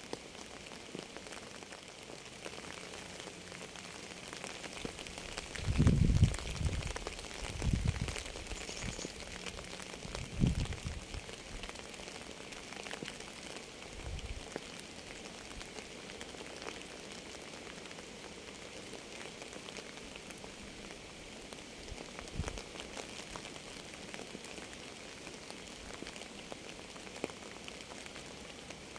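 Steady rain falling on a surface, an even patter of drops. A few deep low thumps break through it, a cluster of three about six to eleven seconds in and fainter ones later.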